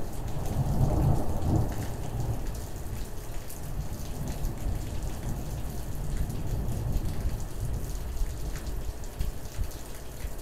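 Thunder rumbling over steady rain, swelling to its loudest about a second in and then rolling on low.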